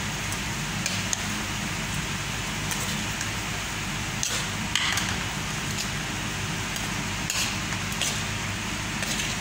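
Steady low hum and hiss of room noise, like a fan or appliance motor, with a few faint clicks and rustles around the middle and near the end.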